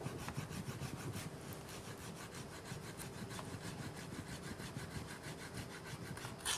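Chef's knife finely mincing pickled cucumbers on a cutting board: a fast, even run of light blade taps, with a slightly louder knock near the end.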